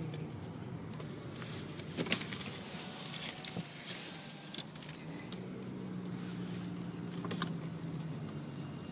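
Steady low hum of a car driving, heard from inside the cabin, with a few scattered clicks and taps.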